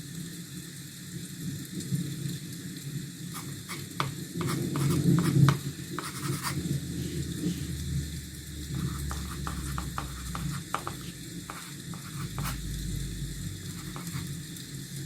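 A drawing tool scratching and tapping on sketchbook paper in short strokes, over a steady low hum and hiss.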